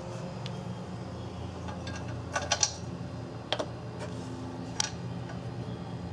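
A few light clicks and taps from handling the fuel tank strap bolts while anti-seize compound is put on their threads: a quick run of clicks about halfway through, then two single taps, over a steady low hum.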